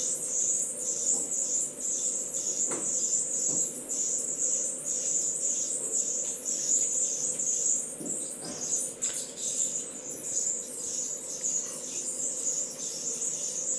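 Crickets chirping in a steady, high, rapidly pulsing trill.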